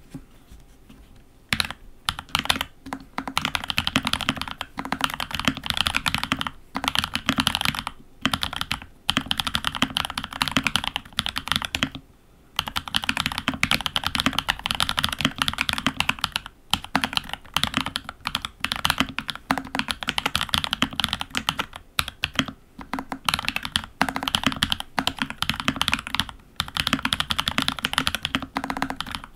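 Typing on a FEKER68 mechanical keyboard fitted with lubed Huano Iceblue switches, a Holy Panda-style tactile switch, in Gateron housings: a dense run of keystrokes. It starts about a second and a half in and has a few brief pauses.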